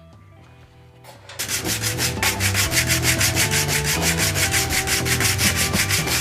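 Hand sanding of a plexiglass window edge: quick, even back-and-forth strokes of abrasive on acrylic, several a second, starting about a second in.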